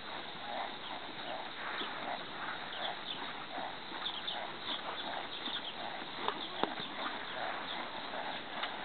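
American Quarter Horse mare's hooves on soft arena dirt at a walk, an even beat of about two footfalls a second. Two sharp clicks sound about two-thirds of the way through.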